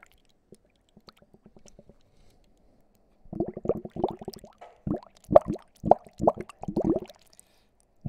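Air blown into water, bubbling in irregular bursts: a faint, quick patter of small bubbles at first, then louder, gurgling bursts from about three seconds in.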